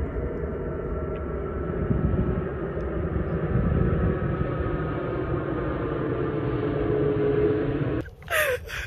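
Steady drone of a distant engine, with several held tones that drift slowly in pitch over a low rumble. It cuts off about eight seconds in and gives way to a short laugh.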